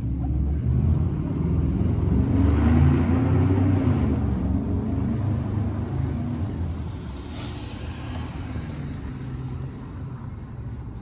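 A motor vehicle's engine running close by. It swells to its loudest about two to four seconds in, then slowly fades, like a vehicle passing.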